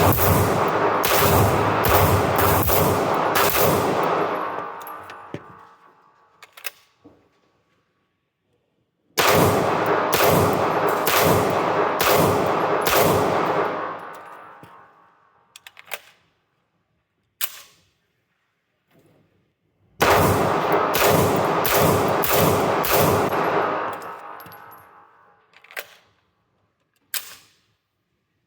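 SIG Sauer P226-X Legion SAO pistol fired in rapid strings of follow-up shots, three strings about ten seconds apart, each shot with a long ringing echo that dies away after the string. A few single sharp cracks fall in the gaps between strings.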